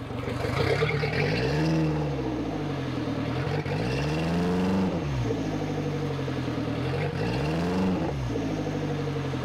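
Suzuki outboard engine, cowling off, running and revved up and back down three times, with steady running between the revs. Its cooling water jacket is clogged with salt crud, which is why the telltale stream has been weak.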